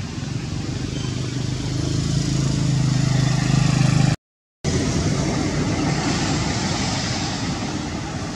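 A motor vehicle's engine running, growing louder over the first four seconds. The sound cuts out completely for a moment, then returns as a steady rush that slowly fades.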